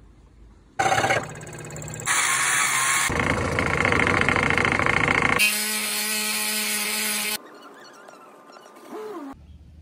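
Electric scroll saw running and cutting through a thick wooden board, heard in several short clips that switch abruptly. About five seconds in, a steady hum with a clear pitch takes over for two seconds, and the last two seconds are much quieter.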